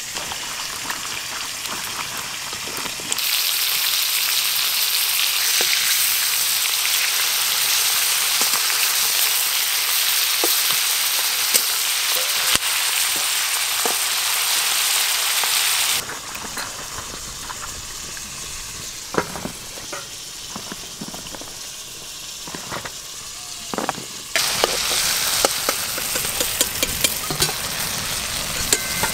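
Giant freshwater prawns sizzling as they fry in hot mustard oil in a wok, with a metal spatula stirring and knocking against the pan. The sizzle starts a few seconds in, after some water sloshing as cut vegetables are rinsed in a steel bowl. It drops quieter in the middle, with scattered spatula knocks, and comes back loud near the end.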